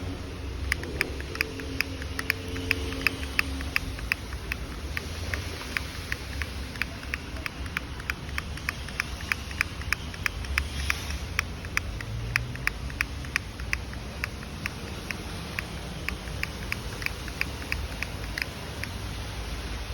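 Regular sharp clicking, about two to three ticks a second, over a low steady hum.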